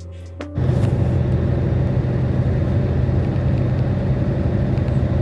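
Steady, loud rumble of a road vehicle running, engine and road noise heard without a break, starting abruptly about half a second in.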